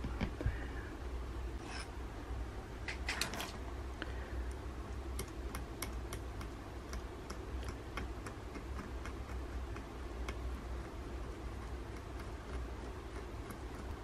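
Small, light ticks and taps of a fine-pointed metal drawing tool working on paper, a few sharper clicks early on and then a run of quick ticks, over a steady low hum.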